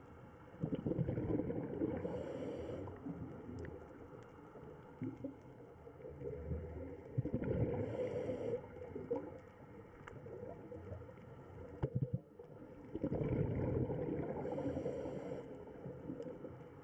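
Scuba diver breathing through a regulator underwater: three breaths about six seconds apart, each a burst of gurgling exhaled bubbles with a short hiss from the regulator.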